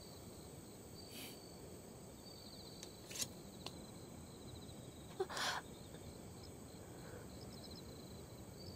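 Faint outdoor ambience of insects chirping in short high trills, with a few brief soft rustles, the loudest about five seconds in.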